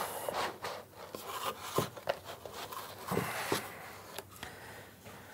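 Quiet rustling, scraping and a few light knocks of cardboard-box packaging as a radio is lifted out of it. The noises come in short bursts and fade out over the last second or two.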